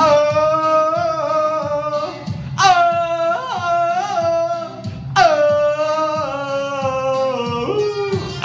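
Tarzan-style jungle yell sung over faint backing music: three long held, wavering vocal calls with yodel-like breaks in pitch, the last one dropping in pitch near the end.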